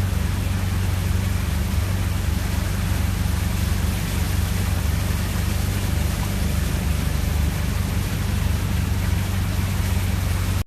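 Steady low vehicle rumble under a constant loud hiss, the sound of driving through the Hurricane Harvey flooding in heavy rain or water spray; it cuts off abruptly at the end.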